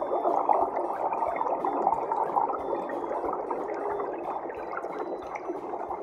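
Steady underwater bubbling and gurgling water.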